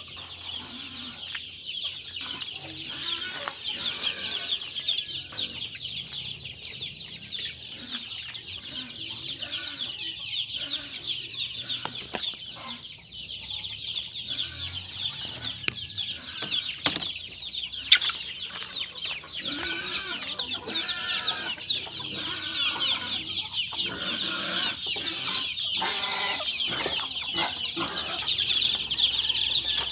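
Chickens clucking on and off, more clearly in the second half, over a steady high-pitched buzz. A single sharp click about eighteen seconds in.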